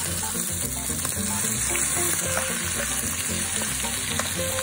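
Beef shanks sizzling steadily as they sear in hot olive oil in a Dutch oven, with metal tongs moving them around the pot.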